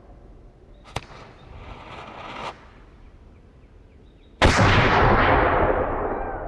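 A three-pounder grasshopper cannon firing a single loud shot about four and a half seconds in, its boom and echo dying away slowly. A sharp click and a second and a half of hissing come about a second in, before the shot.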